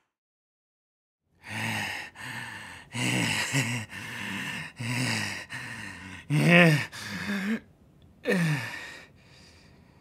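A man's wordless, exasperated vocal outbursts: a quick run of groans, grunts and gasping breaths, with one rising-then-falling yell about two-thirds of the way through and a falling groan after it. They start after a second and a half of silence.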